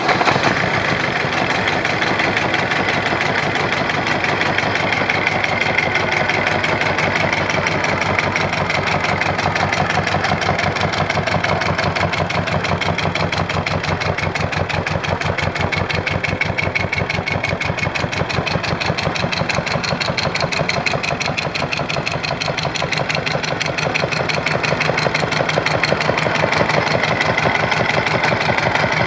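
Isuzu 2AB1 two-cylinder marine diesel engine running steadily at idle, a dense, even diesel clatter on test run.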